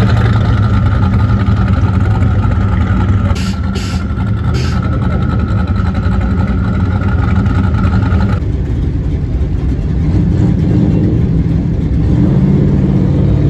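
Classic muscle cars' engines running low and steady as the cars cruise slowly past. A steady high tone sits underneath and cuts off about eight seconds in.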